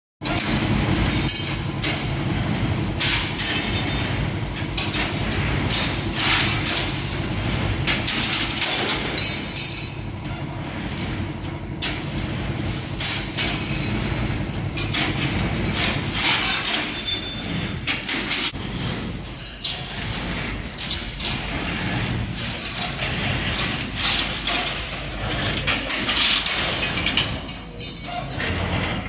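Steady low hum of running workshop machinery around a CNC rebar stirrup bending machine, with frequent sharp metal clanks and knocks from rebar and tools being handled.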